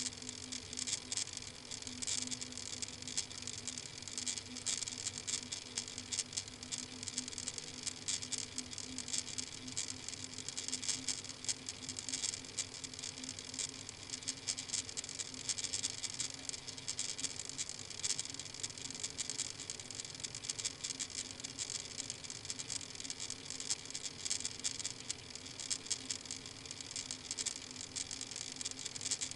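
Steady fine crackling noise over a low steady hum, with no distinct call or event standing out.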